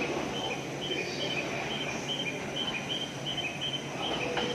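Short high electronic chirps alternating between two pitches, about two a second, repeating steadily over the hum of a station platform.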